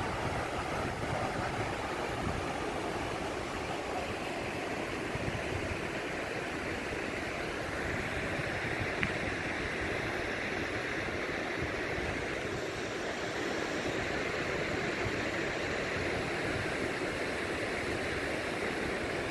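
Small waterfall rushing steadily, a broad hiss of falling water that grows brighter about eight seconds in.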